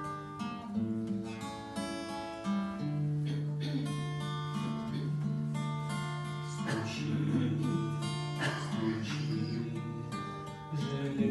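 Acoustic guitar playing a strummed and plucked introduction, with sustained notes changing every second or two.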